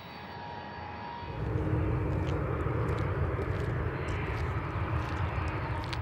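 Tupolev Tu-154 airliner's three rear-mounted jet engines running as it taxis: a steady low rumble with a thin whine, growing louder about a second and a half in.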